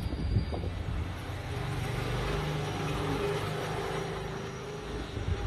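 A low, engine-like hum with a rushing noise that builds about a second and a half in and eases off near the end, like a motor vehicle going by. A few soft low bumps at the start.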